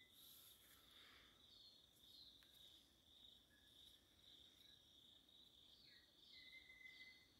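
Faint outdoor insect chorus, a steady high-pitched buzz that carries on throughout, with a few short bird chirps and one held whistled bird note near the end.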